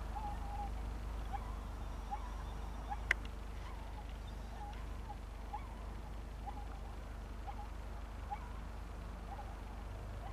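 Faint, short animal calls repeated irregularly, about one a second, with one sharp click about three seconds in.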